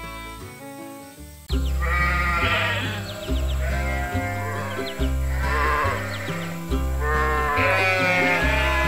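Sheep bleating several times over background music; the music jumps to a louder tune with a repeating bass line about a second and a half in.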